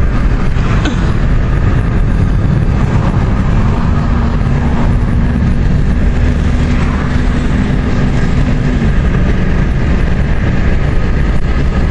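Steady low rumble of road and engine noise inside a moving car's cabin. A faint steady hum comes in for a few seconds in the middle.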